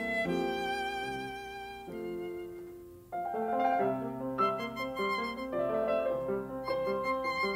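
Instrumental background music with violin and piano: held notes fade away over the first three seconds, then a new passage of short, repeated piano notes comes in sharply.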